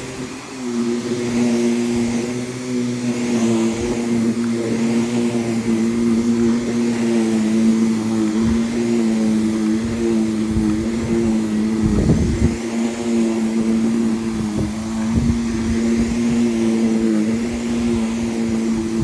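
Vacuum cleaner running steadily on a rug, a constant motor whine, with a few dull low thumps as it is pushed over the rug, the loudest about twelve seconds in.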